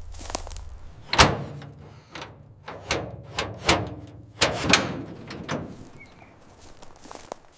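A run of sharp knocks and clanks, each with a brief ring, about eight in all at uneven spacing; the first, about a second in, is the loudest.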